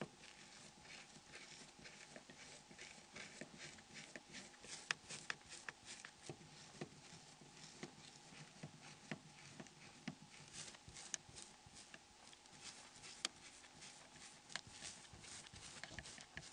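Faint, irregular small clicks and ticks of a small Torx screwdriver undoing the screws of a Nokia N73 phone, over a faint hum.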